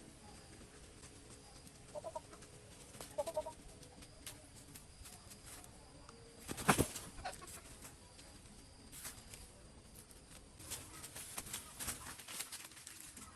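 A chicken clucking briefly twice, among scattered clicks and knocks; the loudest is a single sharp knock about halfway through.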